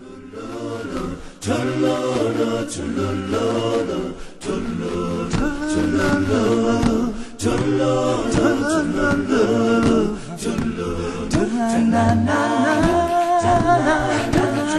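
A cappella vocal music: a group of voices singing together in harmony, with a few sharp clicks.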